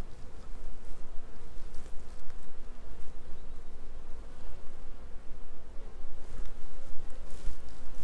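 Honeybees buzzing steadily around their hive, with a few light clicks of wire being twisted by hand.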